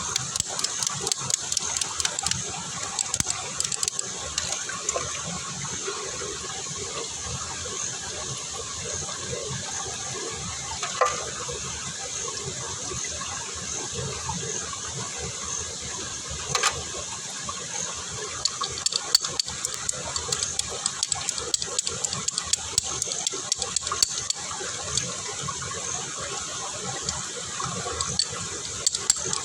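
Food cooking: a steady hiss with many small crackles and pops, thicker near the start and through the last third, with a couple of louder snaps.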